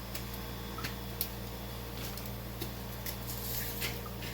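Scattered faint ticks and crackles from a frying pan of browned ground turkey as salt goes in, over a steady low hum.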